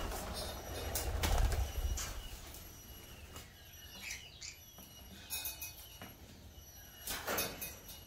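Green-cheeked conure flapping its wings as it lands, loudest in the first two seconds, followed by a few short chirps from the small parrots.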